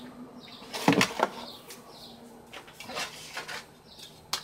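Kitchen utensils clattering: a few scattered clinks and knocks as metal tongs and the slow cooker's glass lid are handled, the loudest about a second in and a sharp click near the end.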